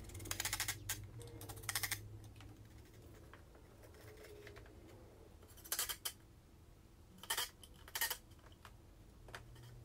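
Faint workshop sounds of a plywood drawer box being screwed together: a cordless driver runs briefly twice near the start, driving pocket-hole screws with a rapid clicking over a low motor hum. Then come a few scattered knocks and clacks of wooden panels being handled and fitted, and another short burst near the end.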